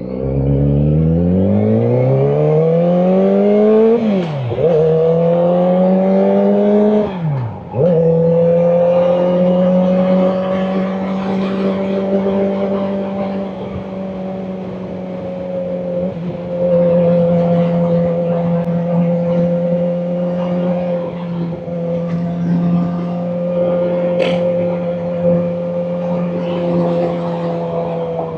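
Kawasaki Ninja ZX-4RR's inline-four engine with a Graves aftermarket exhaust, heard while riding. The engine revs up through the gears with two quick upshifts, then settles to a steady, even note at cruising speed.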